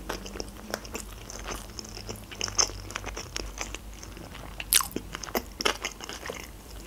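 Close-miked chewing of a mouthful of sushi roll: soft, wet mouth clicks and smacks at an irregular pace, one louder just before five seconds in.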